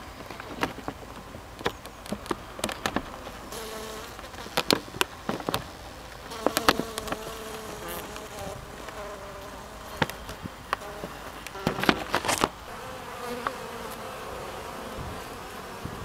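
Buckfast honeybee colony buzzing in the hive, a steady hum with a wavering pitch. Many sharp clicks and knocks come in clusters over the hum.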